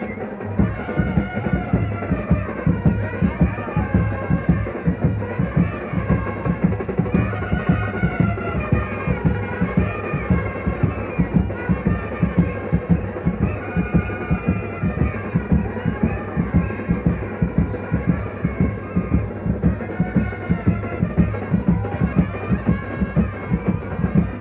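A Mumbai banjo party band playing loudly: a wavering, reedy amplified melody over a fast, steady drum beat.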